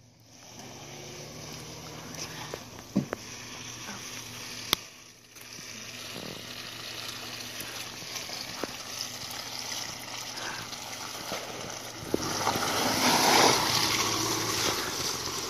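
Lifted Subaru Forester driving slowly over a wet, muddy dirt track, its engine running low and its tyres rolling through mud and puddles. The sound grows louder for the last few seconds as the car passes close by.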